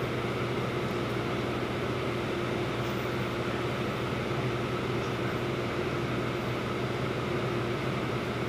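Steady drone inside a waiting city bus: the idling engine and the air conditioning, with a constant low hum.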